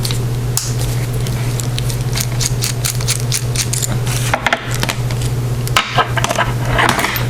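Screwdriver backing a small screw out of an anodized aluminum padlock body, a run of small metal clicks and scrapes over a steady low hum.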